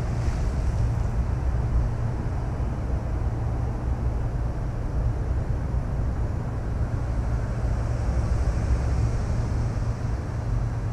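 Steady low rumble of wind buffeting the microphone, without a break.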